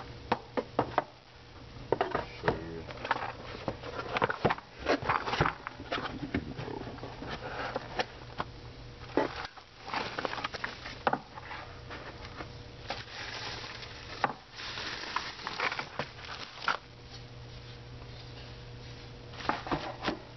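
Computer water-cooling radiators being unpacked: bubble wrap and cardboard packaging rustling and crinkling in irregular bursts, with small knocks as the boxes are handled, over a steady low hum.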